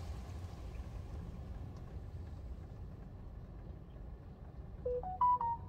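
Inside a car in an automatic car wash: a steady low rumble, with a spray hiss that fades over the first second or two. Near the end comes a short run of electronic beeps stepping up in pitch.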